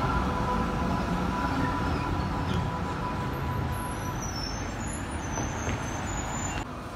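Melbourne B2-class articulated tram rolling past close by and pulling away along the track: a steady rumble with a thin high whine that fades out about halfway through.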